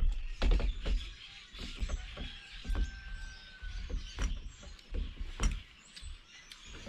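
Outdoor ambience of a string of sharp clicks and knocks over a low rumble that comes and goes. Birds chirp faintly throughout, and one held whistle comes about three seconds in.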